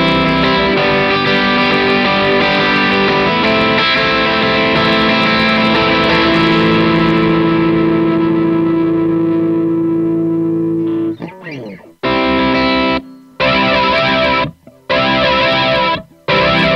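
Electric guitar played through the VST Amp Rack amp simulator, a delay pedal in its chain: one long chord rings out and slowly fades for about eleven seconds. After a brief slide, a few short chords follow, each cut off abruptly into silence.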